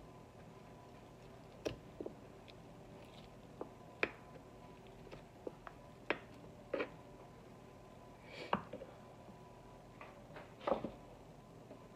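Hands pulling apart and shredding a rotisserie chicken on a cutting board: faint, scattered soft taps and squishes as meat is torn from the bones, about eight in all, over a faint steady hum.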